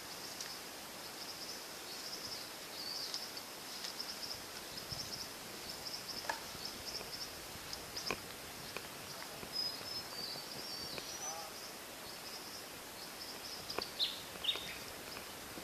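Australian bush ambience: a steady high-pitched chirring that wavers in level, with a few short bird chirps and a falling chirp near the end. A few faint clicks come now and then.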